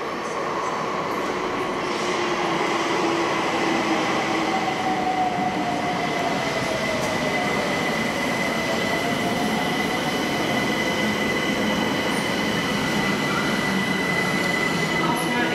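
London Overground Class 378 electric train running into the platform and slowing, with dense wheel and track noise. A steady high squeal joins about two seconds in, and a whine falls slowly in pitch through the middle as it brakes.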